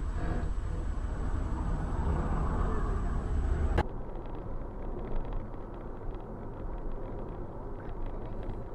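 Road and engine rumble of a moving car heard from inside the cabin through a dashcam microphone. About four seconds in it cuts abruptly to a quieter, steady in-cabin road rumble with faint ticking over it.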